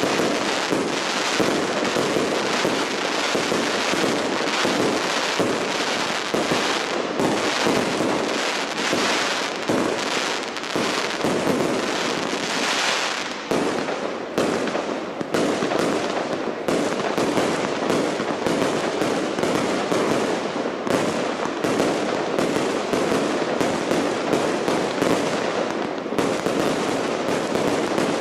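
Large aerial fireworks display going off in a dense, continuous barrage: many rapid bangs and crackles running together without a pause.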